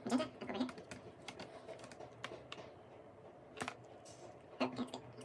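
Light plastic clicks and taps as a small squeeze bottle of pre-mixed paint is handled and set against a plastic paint palette, with a short murmured voice at the start and again near the end.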